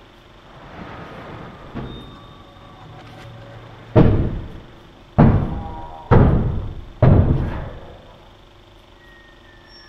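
A fist pounding on a wooden door: four heavy bangs about a second apart, each with a long echo, after a softer thump.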